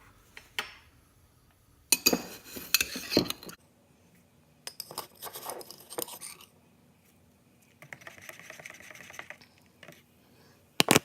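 Dishes and cutlery clinking and scraping in several short bouts, with a couple of sharp knocks near the end.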